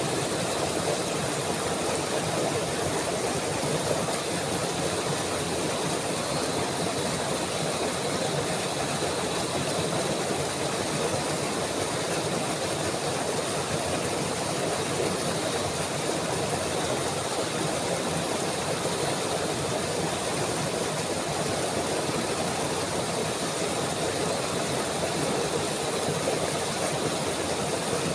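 Steady rushing of running water, an even hiss and rumble that holds at one level throughout.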